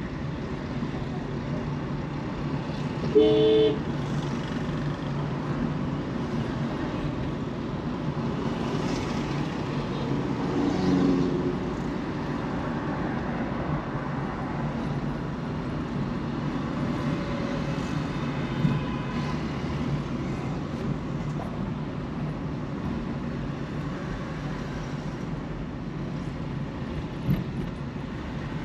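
Steady road and traffic noise from a car drive, with a vehicle horn sounding once, briefly and loudly, about three seconds in.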